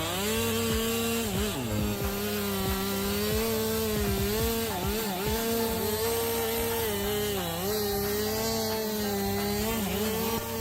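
Chainsaw running at high revs while cutting wood, its engine note dipping briefly several times as the chain loads in the cut and recovers.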